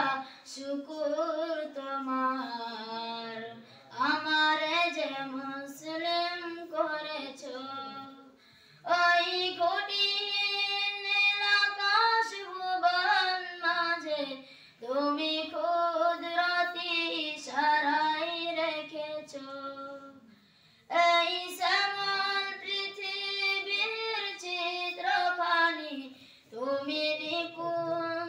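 A boy singing a Bangla gazal solo and unaccompanied, in long held, ornamented phrases with short pauses for breath, the longest about eight and twenty seconds in.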